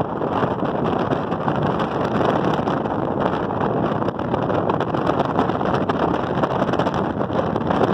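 Steady rushing wind buffeting the microphone, flickering in level, with no engine note or voices.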